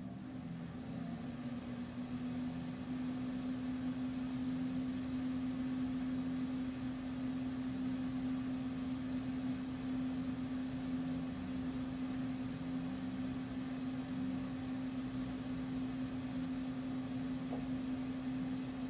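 A steady machine hum: one constant low tone over an even hiss, growing a little louder over the first few seconds and then holding level.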